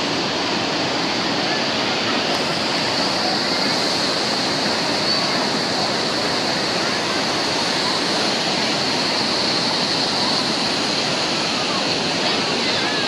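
Waterfall: heavy white water pouring over stepped rock ledges in a steady, unbroken rush, with faint voices of people in the background.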